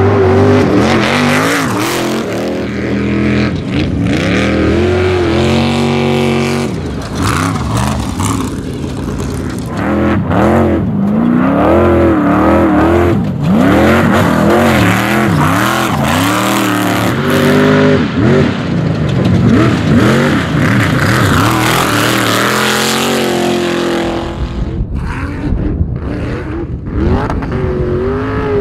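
Off-road race truck's engine revving hard, its pitch climbing and dropping again and again as it accelerates, shifts and lifts over rough desert terrain. A deep rumbling noise joins in for the last few seconds.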